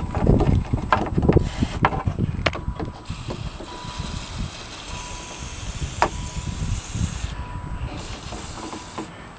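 Silicone lubricant sprayed from an aerosol can onto a power window mechanism, hissing in long bursts, after a few knocks and clatters from handling the parts in the first few seconds.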